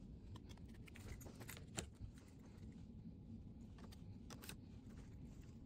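Faint, scattered metallic clicks and rattles from a small metal card holder being handled, with a sharper click a little under two seconds in and another pair of clicks near the end.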